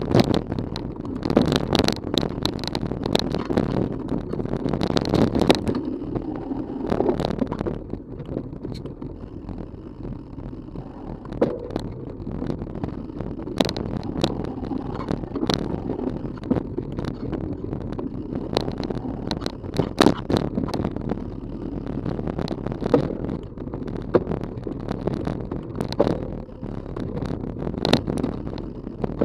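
Rocky Mountain Element 930 mountain bike rolling down a dirt trail, picked up by a camera strapped to the bike: a constant rumble of tyres and rattle of the frame, with frequent sharp knocks and clatter over bumps. Rougher and louder for the first six seconds or so, then quieter.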